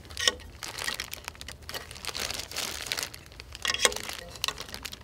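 Clear plastic bag crinkling and rustling in the hands, irregular throughout, with a few light clicks of small plastic parts.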